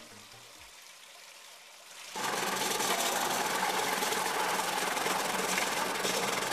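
Industrial vegetable slicing machine running as turmeric roots are fed through it: a loud, steady mechanical noise with a low hum that comes in abruptly about two seconds in, after a couple of seconds of faint background.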